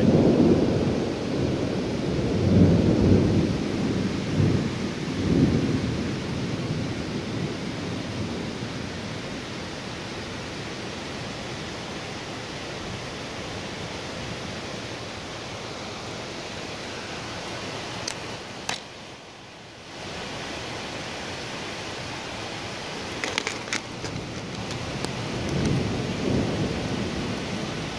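Thunder rumbling loudly for the first several seconds after a lightning strike, over steady rain. The rain keeps on, and a second, softer rumble of thunder comes near the end.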